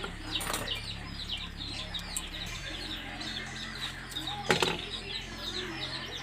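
Birds chirping busily in quick short calls, over a steady low hum, with two sharp knocks about half a second and four and a half seconds in.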